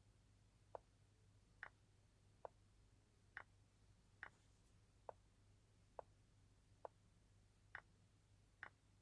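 Faint chess-move clicks, like pieces being set down on a board: ten short clicks a little under a second apart, some sharper and higher than others, over a low hum.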